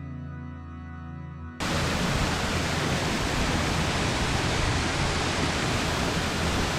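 Soft ambient music that cuts off abruptly about a second and a half in, giving way to the steady, loud rush of a waterfall in full flow, swollen by recent torrential rain.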